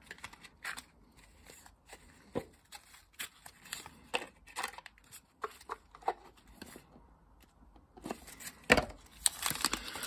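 Paper and cardboard being handled as a pocket knife is slid out of its small cardboard box and unwrapped from its paper wrapping: scattered short rustles, crinkles and light taps, with a quiet pause before denser rustling near the end.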